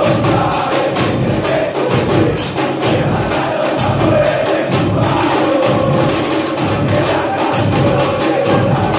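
A supporters' band of football fans chanting in unison over a steady beat of bass drums and cymbals, inside a concrete stadium concourse.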